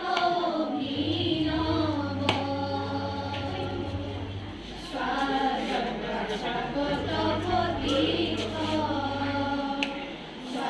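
A group of young women singing a song together in unison into a microphone, with short breaks between phrases about four and a half seconds in and near the end.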